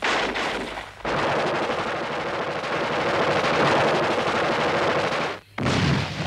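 Dense, continuous gunfire, breaking off briefly about a second in. A heavier blast with a deep low end comes near the end.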